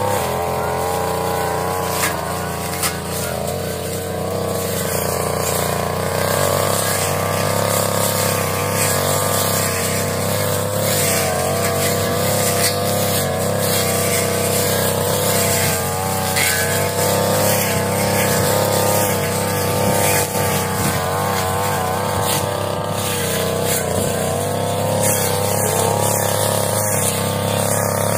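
Two-stroke brush cutter engine running at high revs, its pitch wavering up and down slightly as it works.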